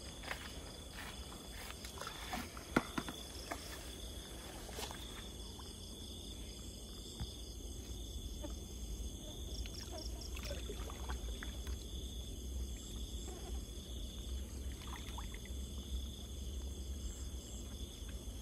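Crickets trilling steadily at night, with footsteps and rustling through tall grass and a few sharp clicks from handling, the loudest about three seconds in.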